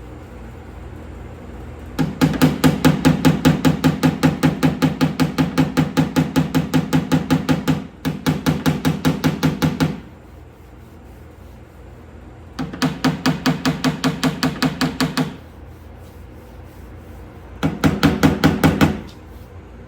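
Body hammer rapidly pecking down high spots on a primered steel door skin. The blows come about six a second in four runs: a long one of about eight seconds with a brief break, then two shorter ones.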